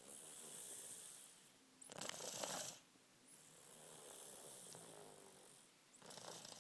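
Snoring in slow breath cycles. Soft, hissy breaths alternate with a louder, rattling snore about two seconds in, and another begins near the end.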